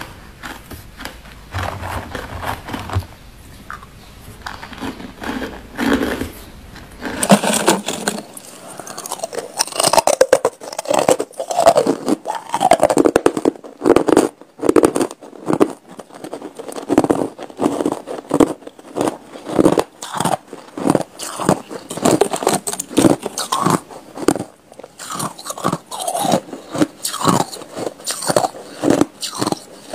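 White frosted ice being bitten and chewed close to the microphone: a run of crisp, irregular crunches, quieter for the first several seconds and then louder and denser.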